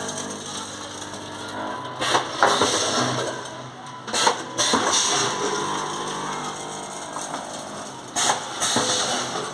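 Automatic vertical form-fill-seal sachet packing machine with a weigher running: a steady mechanical hum, broken three times by loud clattering bursts as it forms, fills and seals snack sachets.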